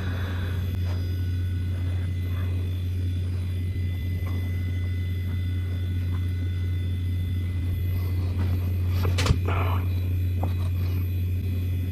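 Power Macintosh G4 'Yikes' running during boot into Mac OS X: a steady low machine hum from its fans and drives, with faint steady high tones over it. A single short click about nine seconds in.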